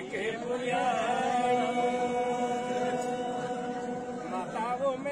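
Men's voices singing a Pahadi devotional folk song of the Nanda Devi Raj Jat without instruments, in a chant-like style, holding one long, slightly wavering note from about a second in until near the end.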